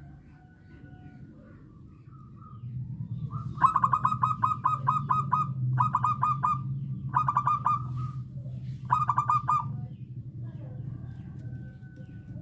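Zebra dove cooing in four runs of quick, staccato notes. The first run is the longest, about ten notes, and the others are shorter. A steady low hum runs underneath.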